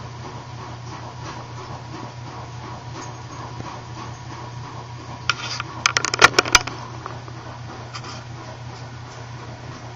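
Puppies scuffling and chewing at a foam Croc shoe on carpet: quiet scratching, then a quick run of sharp clicks and taps about five to six and a half seconds in, over a steady low hum.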